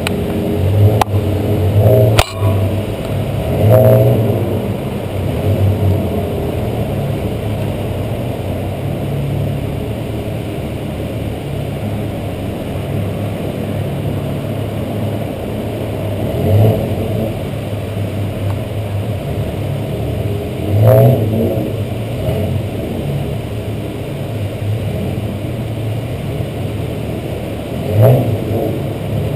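Ferrari engines idling and maneuvering at low speed, heard from well above, with the throttle blipped so the revs swell briefly several times. A sharp click about two seconds in.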